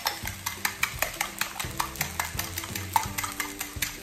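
Beaten eggs being whisked with a fork in a ceramic bowl: quick, even clicks of the metal against the bowl, about four or five a second.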